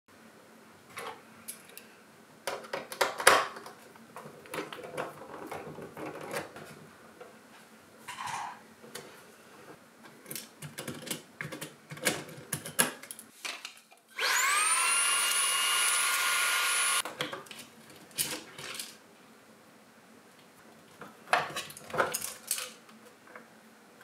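Clicks, knocks and rattles of screws and plastic panels as a coffee machine's housing is taken apart. About halfway through, a small electric motor spins up with a rising whine, runs steadily for about three seconds, then cuts off.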